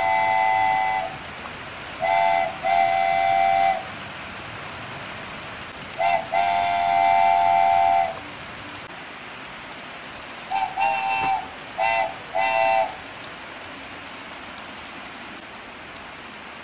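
Rain falling steadily on wet concrete, with a horn of a few notes sounded together, like a train horn, blowing in blasts: one at the start, two about two seconds in, a longer one around six seconds, and three short toots about eleven to thirteen seconds in.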